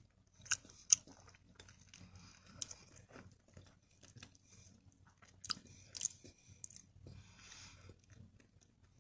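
A person chewing food close to the microphone, with wet mouth clicks and smacks scattered through it, sharpest about a second in and again around six seconds.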